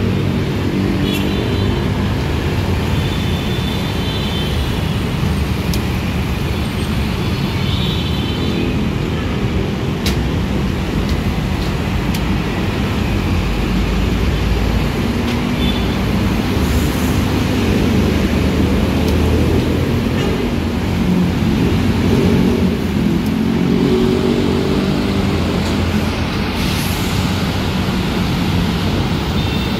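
Busy city road traffic: motorcycles, cars and city buses driving past in a steady engine din. There are a few high squeals in the first ten seconds and two short hisses later.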